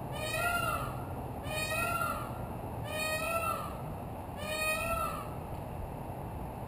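A peacock calling four times in a row, about one and a half seconds apart. Each call is a loud wail under a second long that rises and then falls in pitch.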